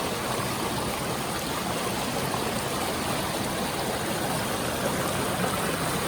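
Mountain stream rushing over rocks, a steady, even roar of water.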